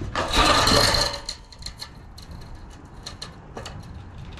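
A short piece of freshly roll-formed sheet-metal K-style gutter scraping and rattling as it is picked up off a plywood board, loudest for about the first second, followed by scattered light clicks and ticks of the thin metal being handled.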